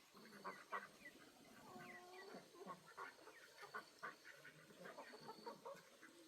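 Chickens clucking faintly, with many short clucks and one longer, drawn-out call about two seconds in.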